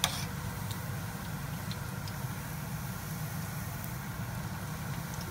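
Okra-shrimp balls deep-frying in a pan of oil, a soft sizzle with scattered small crackles over a steady low hum. A single sharp click right at the start.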